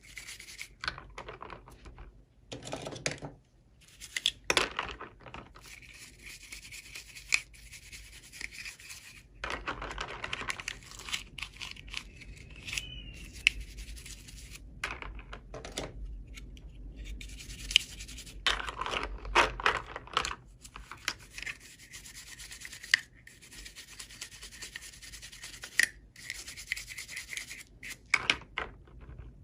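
Hands handling toy packaging and small plastic pieces: irregular rubbing and scraping, with sharp clicks and taps scattered through.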